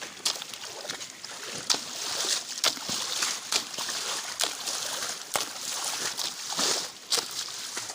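A digging tool striking and turning over wet, muddy soil in a steady rhythm, about one stroke a second, with sloshing and splashing of the mud between strokes.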